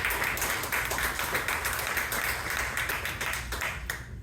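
Audience applauding, a dense patter of many hands clapping that stops near the end.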